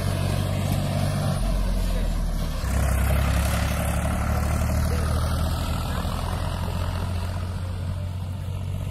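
A motor vehicle's engine running with a steady low hum, its pitch shifting slightly about one and a half and again about three seconds in.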